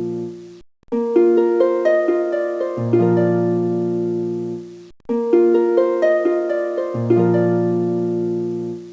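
Background music: a short plucked-string, harp-like melody over a held bass, looping about every four seconds and cutting out briefly twice.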